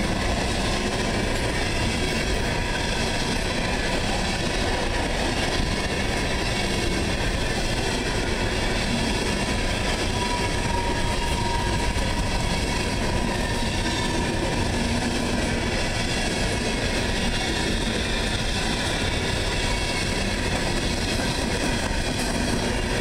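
Empty CSX coal cars rolling past at close range: a steady, unbroken rolling noise of steel wheels on the rails.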